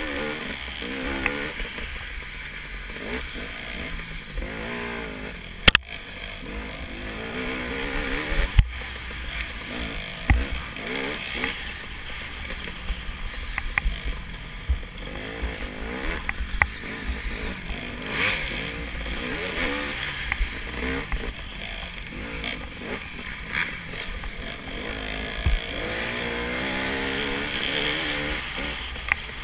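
Dirt bike engine heard onboard, revving up and down as the rider works the throttle along a tight woods trail. A few sharp knocks from the bike jolting over the trail.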